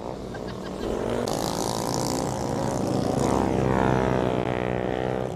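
Motorcycle engine revving hard as the bike passes close, its pitch climbing and the sound building to its loudest about four seconds in before easing off.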